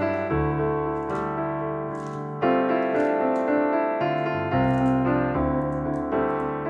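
Background piano music, with chords and notes struck at an easy pace and left to ring.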